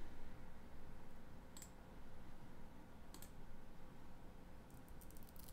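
Computer mouse clicking: one click, another about a second and a half later, then a quick run of clicks near the end, over a faint steady hum.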